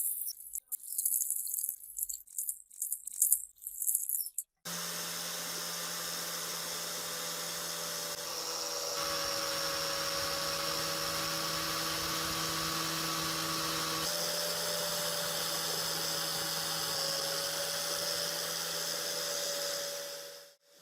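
Rapid scratchy rubbing strokes of hand abrasion on rusty metal. About four and a half seconds in, a small electric rotary tool starts and runs steadily with a hum and a whine, its tone shifting slightly as it works the metal, then winds down near the end.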